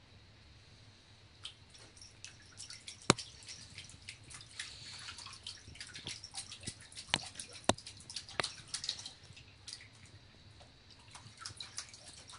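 A Bengal cat pawing at shallow water in a bathroom sink: a quick, irregular run of splashes and drips with a few sharp smacks of the paw on the water. It starts after about a second and a half, is busiest in the middle and thins out near the end.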